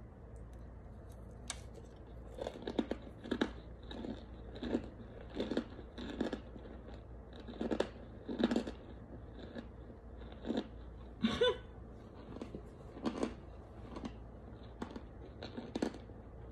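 Close-up chewing of hard, crunchy baked starch chunks: irregular crisp crunches, about one every half second to a second, starting about two seconds in.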